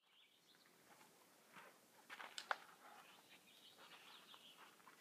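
Faint outdoor quiet with a few soft, high bird chirps. There are some rustles and sharp clicks around two seconds in, the loudest click about two and a half seconds in.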